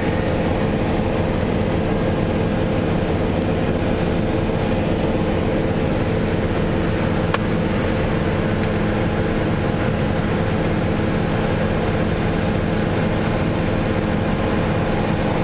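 Steady engine and road noise inside a vehicle's cabin, an even drone with a low hum that does not change.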